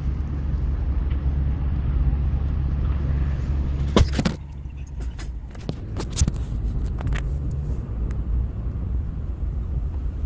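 Motor vehicle running with a steady low drone of engine and road noise. About four seconds in there is a sharp knock, after which it is quieter, followed by several scattered clicks.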